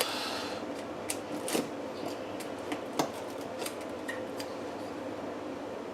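Cutting and picking at tough packing tape on a cardboard box: scattered small clicks, scrapes and rustles, with a sharper click about a second and a half in and another about three seconds in.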